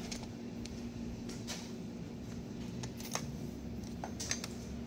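Scattered light clicks and taps of a hand tool and fittings on car engine parts, at irregular intervals, over a faint steady hum.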